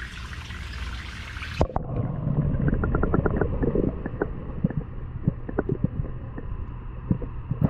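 Pond water trickling. About one and a half seconds in, the sound suddenly turns muffled: low gurgling and bubbling with scattered clicks.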